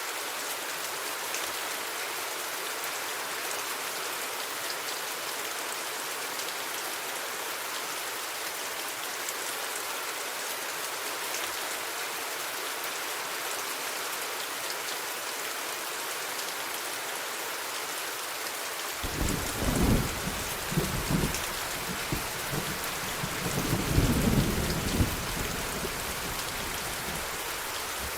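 Steady rain hissing and pattering throughout. About two-thirds of the way in, thunder rumbles low, cracking loudest near the start, then swelling again a few seconds later before it fades away.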